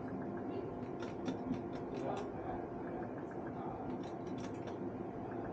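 Steady room hum with two runs of light clicks and ticks, about a second in and again around four seconds in.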